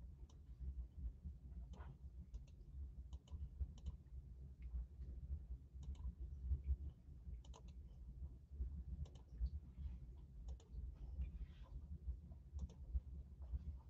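Faint, irregular clicks of a computer mouse and keyboard, over a low steady hum.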